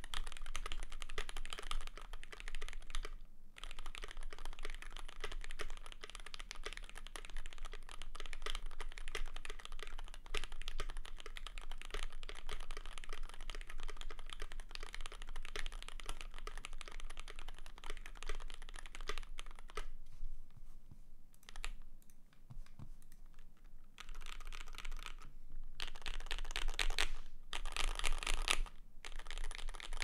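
Continuous fast typing on a custom mechanical keyboard, a KBD75 v3.1 with lubed Gateron X linear switches on a brass plate and GMK keycaps: a dense run of keystroke clacks. It stops briefly about three seconds in, thins out and softens for a few seconds about two-thirds of the way through, then picks up again.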